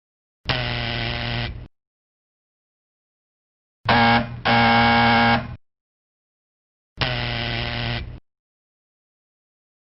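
Electric doorbell buzzer sounding in presses: a single buzz of about a second, then a short buzz followed at once by a longer, louder one, then another single buzz of about a second. Each buzz starts and stops abruptly.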